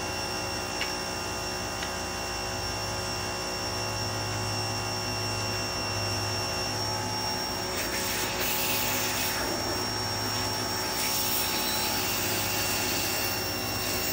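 Pressure washer running steadily, its wand held against a pool wall fitting to blow water through the pool's pipe line. The spray hiss grows louder about eight seconds in.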